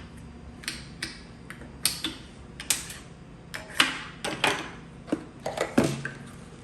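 Pretend-play toy food pieces being handled and set down: about a dozen irregular sharp clicks and clacks, with a duller knock near the end.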